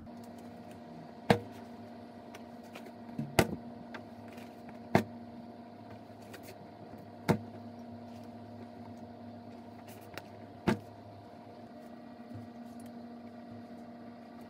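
Freshly washed laundry being shaken out by hand, giving five sharp snaps of cloth spaced unevenly over about ten seconds. A steady low hum runs underneath.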